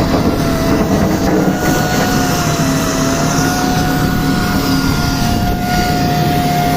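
Loud, steady racket of granite-quarry machinery: diesel engines running with a steady high whine over them.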